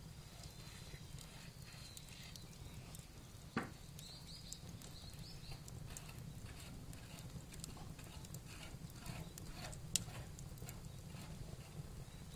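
Wood fire burning with a steady low rumble, crackling with scattered small pops, and two louder sharp cracks about three and a half and ten seconds in.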